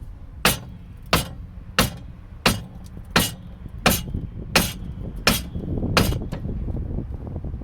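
Nine sharp, evenly spaced hammer taps, about one every 0.7 seconds, on a car's front hub carrier, knocking it round on the strut to line its notch up with the slot.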